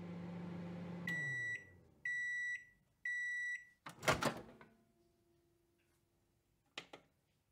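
Microwave oven running with a low hum that drops in pitch and dies away as it stops, then three high beeps about a second apart signalling the end of cooking. A loud clunk follows, then a faint tone and a couple of short clicks near the end.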